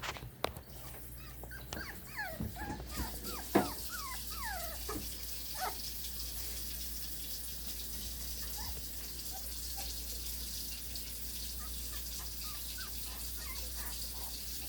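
Puppies whimpering and squealing in many short, falling high-pitched cries. The cries come thick in the first several seconds, then thin out to occasional faint squeaks.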